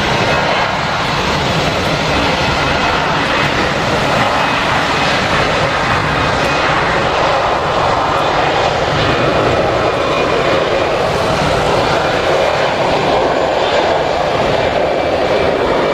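Airbus A320-214's CFM56 turbofan engines running at takeoff power: a loud, steady jet noise that swells slightly toward the end, mixed with heavy rain.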